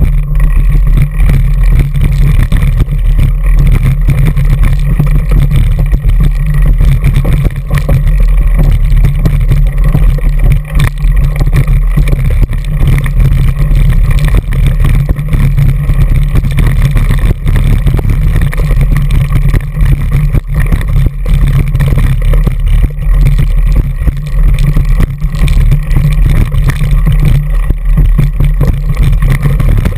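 Constant low rumble and rattling picked up by a handlebar-mounted GoPro Hero2 as a mountain bike rolls over a rocky trail, with frequent knocks from the tyres striking stones and wind on the microphone.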